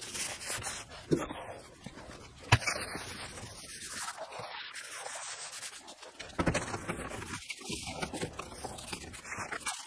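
Cloth rag rubbing and scraping over the bare sheet-metal body of a 1969 VW Beetle, wiping off dust and dirt before paint, with two sharp knocks about one and two and a half seconds in.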